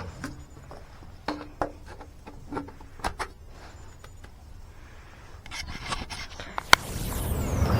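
Scattered clicks, knocks and rubbing, as of equipment being handled, with a hiss that builds and turns loud near the end.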